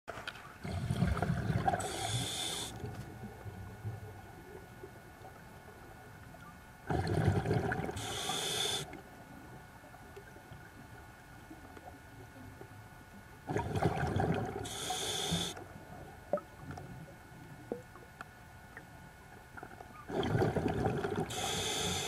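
Scuba diver breathing through a regulator underwater: four breaths about six and a half seconds apart. Each is a bubbling rumble followed by a high hiss.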